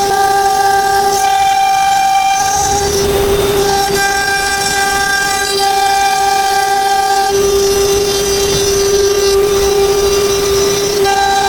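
CNC router spindle running at speed, a loud steady whine made of two main pitches. The upper pitch drops away for a few seconds in the second half, and a rougher noise is mixed in for about a second around three seconds in.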